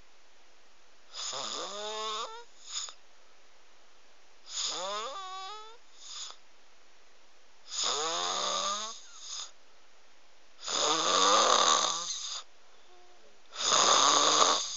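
Snoring in a steady rhythm: five snores about three seconds apart, each carrying a pitched tone that bends up and down. The last two are louder and rougher.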